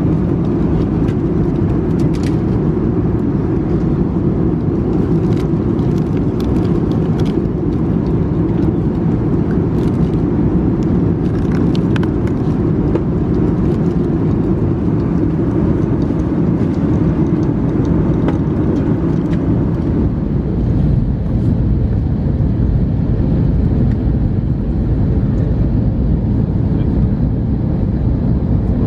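Steady cabin roar inside an Airbus A321neoLR airliner in flight, from its engines and the airflow over the fuselage, with a few light clicks in the first half. About twenty seconds in, the roar turns a shade duller.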